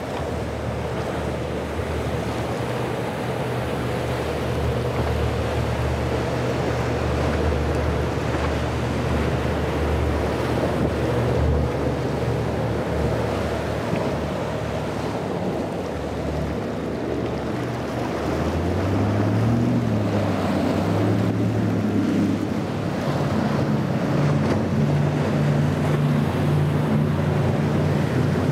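Motorboat engines running through breaking inlet waves, with water rushing and splashing and wind buffeting the microphone. About two-thirds through, the engine pitch wavers up and down a few times, then holds steady at a higher pitch.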